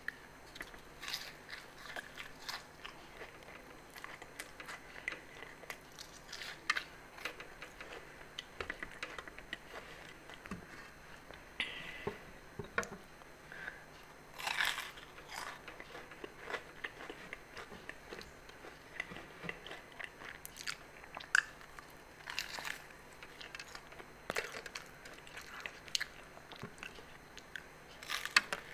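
A person biting and chewing aloo samosas: crisp fried pastry crunching and wet chewing, in irregular short crackles.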